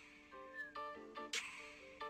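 Quiet background music: a melody of changing notes over sharp percussive hits about once a second.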